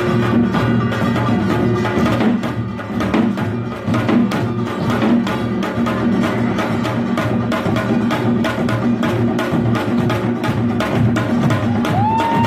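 Korean pungmul percussion band playing a fast, driving rhythm: metal gongs struck in quick, even strokes over booming drums. Near the end a single piping tone slides up and holds.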